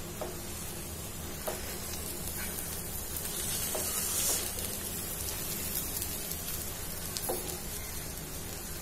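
A spatula stirring cooked, dry moong dal in a pot, with a soft steady sizzle from the pot and a few light taps of the spatula.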